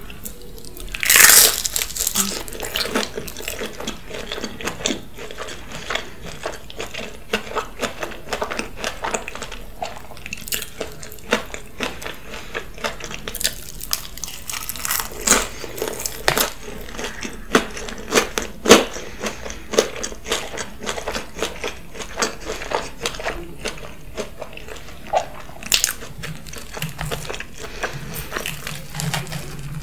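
Eating sounds from pizza topped with waffle fries, melted cheese and bacon: a loud crunchy burst about a second in, then steady chewing with many small crunches and wet clicks.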